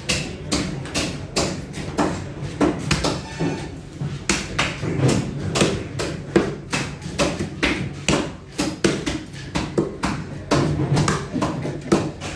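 Knife or cleaver chopping through fish on a cutting board: sharp, unevenly spaced knocks, about two or three a second.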